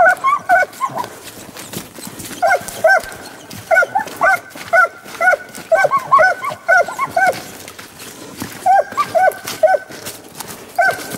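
Eight-month-old scent hound pups giving tongue on a wild boar trail: strings of quick, high-pitched yelps in bursts, with short pauses between, the sign that they have the scent. Footsteps crackle through brush and mud between the yelps.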